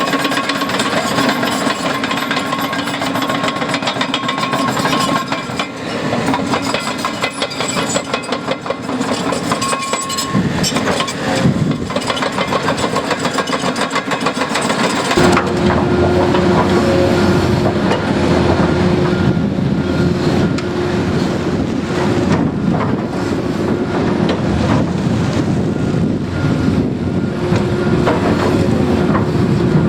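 Heavy diesel construction machinery working, engines running with a steady metallic clatter. About halfway through, a deeper, steadier engine note takes over.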